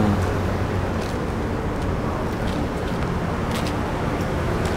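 Steady road traffic noise from a city street.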